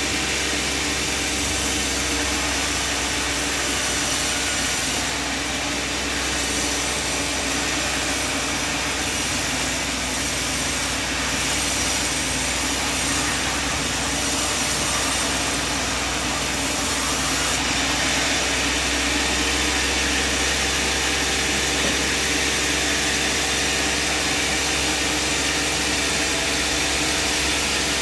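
Band sawmill running steadily: engine drone under a dense hiss from the saw, its tone shifting about two thirds of the way through.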